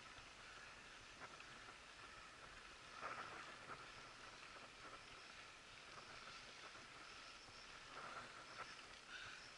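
Near silence: faint steady background hiss with a few soft clicks and rustles, a little louder about three seconds in and again near the end.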